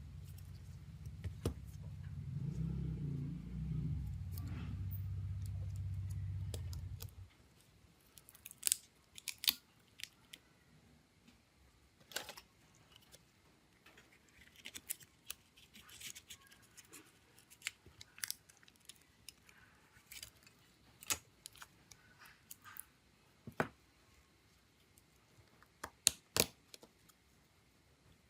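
Small tools clicking and tapping against the parts of a mobile phone being taken apart, in scattered sharp clicks. A low hum plays for the first seven or so seconds and then stops suddenly.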